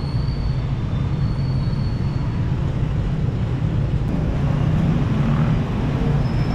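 Steady low rumble of road traffic, with a faint high tone that comes and goes in the first two seconds.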